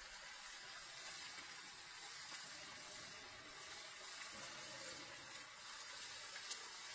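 Clay pot of bugs simmering over a small wood fire, a faint steady hiss, with one sharp click about six and a half seconds in.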